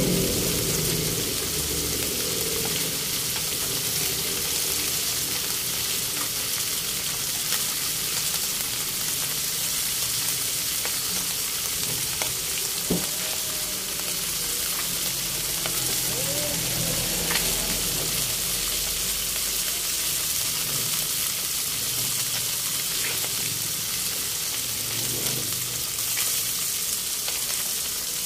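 Whole round scad (galunggong) shallow-frying in hot oil in a pan: a steady sizzle with many small pops and spatters.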